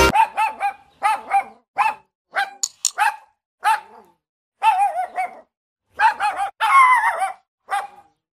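A dog barking, laid over the picture as a sound effect: a quick, irregular run of short, high barks in clusters with brief silences between, and one longer bark a little after two-thirds of the way through.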